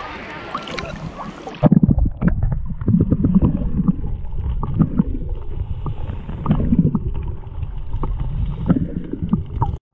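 Sea water lapping and splashing around a camera held at the surface, an even hiss, cut off about two seconds in. A low, uneven rumble of wind buffeting a phone microphone follows, with a few light clicks.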